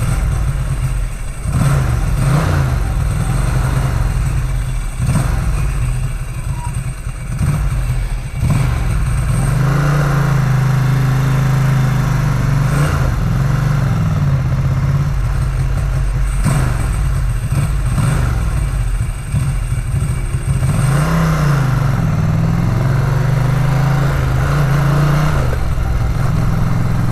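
Ducati 900 SS V-twin motorcycle engine running while riding, its pitch rising and falling repeatedly with throttle and gear changes.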